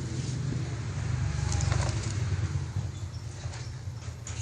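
A steady low engine-like hum, with a few light clicks near the end.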